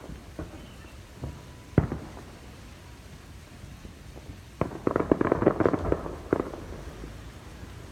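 Distant fireworks: a few single bangs, the loudest about two seconds in, then a quick run of rapid crackling pops in the second half, over a low rumble.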